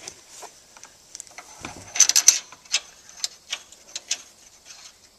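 Small metal clicks and clinks of a steel main bearing cap being worked up into place against the crankshaft and block by hand, with a quick cluster of louder clinks about two seconds in and single ticks after as a bolt is brought to it.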